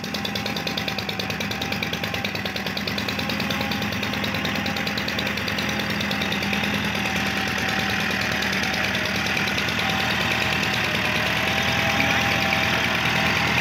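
Massey Ferguson 275 tractor's three-cylinder diesel engine running steadily with a fast even throb as it puddles a flooded paddy field, growing slowly louder as it comes closer.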